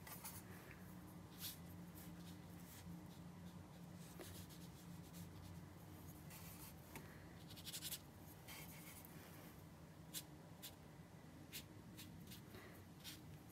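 Faint brush sounds: a watercolor brush swirling paint in a palette and stroking onto paper, with a few light ticks, over a low steady hum.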